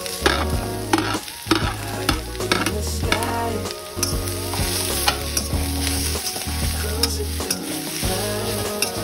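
Onions, green peppers and carrot slices sizzling in a hot wok as they are stirred, with a metal spatula scraping and clicking against the pan.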